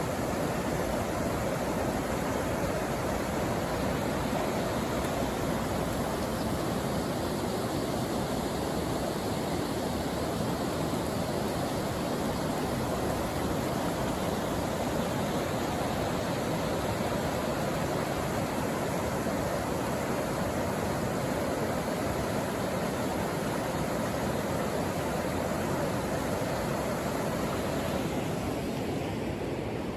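A river running over rocks and shallow rapids: a steady rush of flowing water, thinning slightly near the end.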